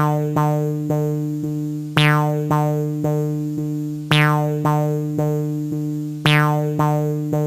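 Synthesizer or electric-piano music: a short repeating phrase of plucked, decaying notes over a steady held bass tone, the phrase coming round about every two seconds.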